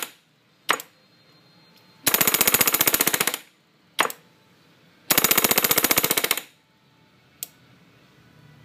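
A bank of nitrous and fuel solenoids (two Nitrous Pro Race nitrous solenoids, an Edelbrock fuel solenoid and a large trash-can solenoid) being pulsed together by a nitrous progressive controller under a load test. Twice they give a rapid, even chatter lasting just over a second, and a single sharp click comes about a second after each burst.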